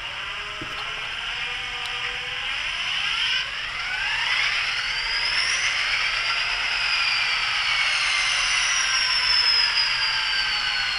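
Tsunami sound decoder in an Athearn N scale Santa Fe F45/FP45 playing diesel locomotive engine sound through its tiny speaker. A whine rises in pitch from about three to six seconds in, then slowly sinks, over a steady engine drone.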